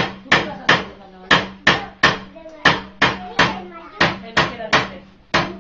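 Hand hammer striking copper, in quick groups of three blows with a new group about every second and a third; each blow rings briefly. A steady low hum runs underneath.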